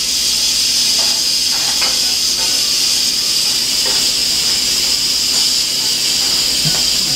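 Instant Pot electric pressure cooker venting steam through its release valve with a steady, loud hiss: the high pressure built up during cooking being let out before the lid can be opened.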